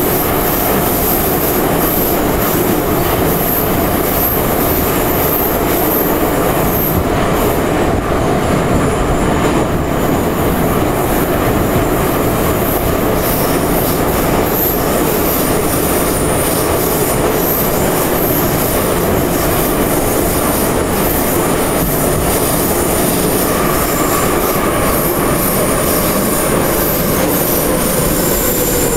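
Ezh3 metro car running at speed, heard from inside the car: a steady, loud noise of wheels on the rails and the running train. From about halfway through, a thin high squeal of wheels on rail rides on top of it.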